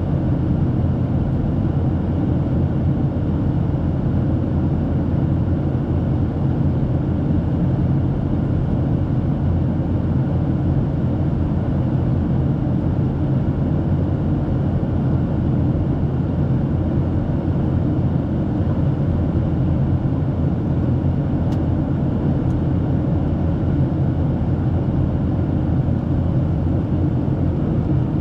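Steady cabin noise inside a Boeing 737-800 in flight: a constant low rumble of its CFM56 turbofan engines and rushing air, unchanging in level.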